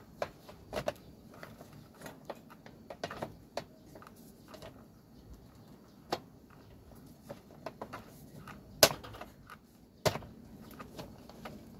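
Scattered clicks, taps and knocks of plastic parts and wiring being handled and pushed back into a Panasonic induction-heating rice cooker's plastic body during reassembly. Two sharper knocks come near the end.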